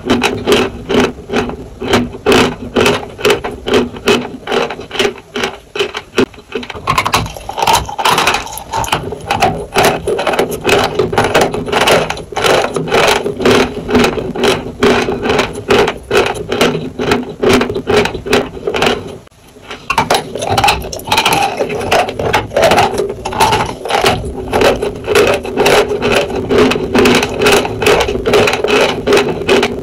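Close-miked chewing of dry chalk, a steady run of sharp crunches about three a second, with a brief pause about two-thirds of the way through.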